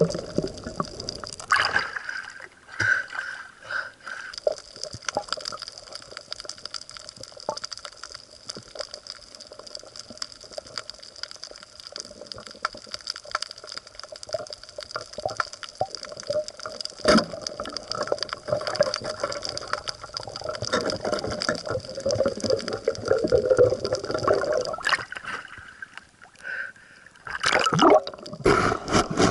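Water gurgling and dripping, with scattered crackles and a few sharp clicks.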